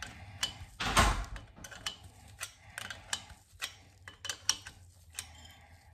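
Small open-end wrench clicking and ticking against an adjustable pushrod's adjuster as it is turned a little at a time, in irregular metal clicks with the loudest about a second in. The pushrod is being lengthened turn by turn past zero lash to preload the hydraulic lifters and let them bleed down.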